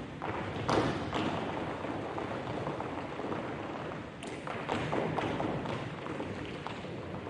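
Tap shoes striking the stage floor: several dancers tapping quick rhythmic patterns together, with a few louder stamped accents now and then.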